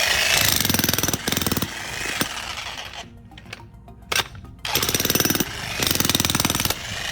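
A Vevor 2200-watt electric jackhammer with a spade bit hammering into hard ground. It runs in several bursts of rapid blows with short pauses between.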